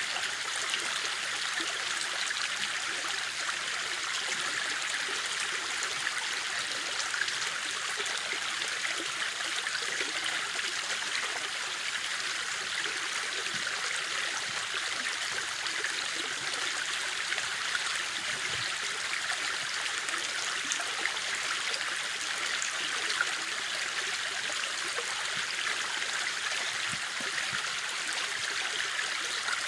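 River water flowing, a steady even rush with no change.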